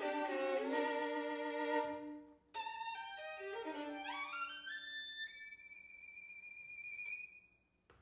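Violin playing with bowed string accompaniment: sustained chords, a brief break, then a rising run that ends on a single high held note fading away near the end.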